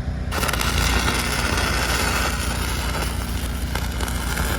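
Stick-welding arc struck about a third of a second in, then crackling and sizzling steadily as the rod burns. Under it an engine drones steadily.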